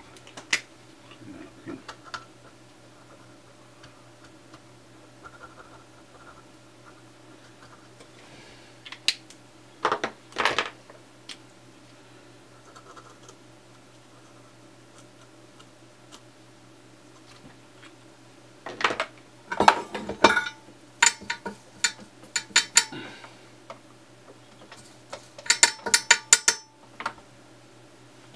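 Small tools and parts handled on a workbench: scattered taps and clicks over a faint steady hum, with a cluster of louder clicks and scrapes past the middle. Near the end comes a short run of rapid scratchy strokes from a toothbrush scrubbing flux residue off a circuit board.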